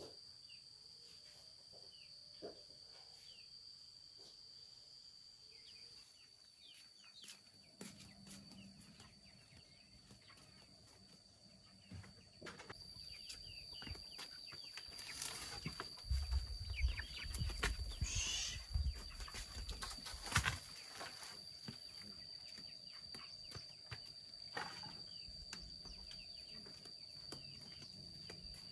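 A steady high-pitched insect drone, with scattered clicks and knocks throughout and a louder stretch of low thumps, rustling and a few short calls in the middle.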